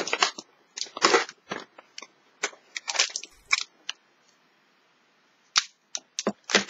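A cardboard Kinder chocolate advent calendar and a small wrapped chocolate bar being handled: a scatter of short crackles and taps as the bar is taken out of its compartment. After a quiet pause come a few sharp clicks near the end.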